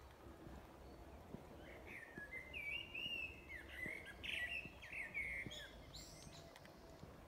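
A songbird singing a quick run of warbling, chirping phrases for about four seconds, starting about two seconds in, with a few higher notes near the end, over faint outdoor background noise.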